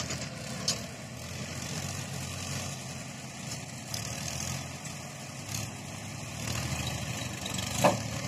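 Sonalika farm tractor's diesel engine running steadily at low revs while pulling a loaded tipper trailer through mud. The engine swells slightly late on, and there is one short sharp knock near the end.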